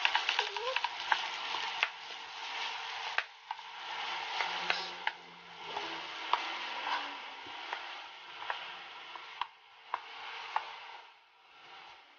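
Rice stir-frying in a frying pan: a steady sizzle, with a wooden spatula scraping and knocking against the pan in irregular clicks as the rice is turned. It dies down near the end.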